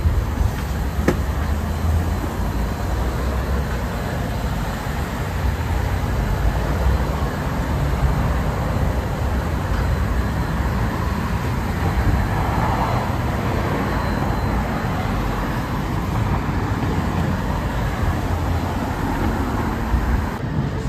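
Steady city street traffic noise: a continuous rumble of road vehicles, with a single sharp click about a second in.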